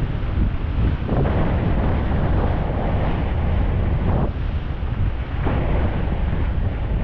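Wind buffeting the microphone of a skier moving fast down a groomed piste, a steady low rumble, with the hiss of skis sliding on packed snow swelling a few times.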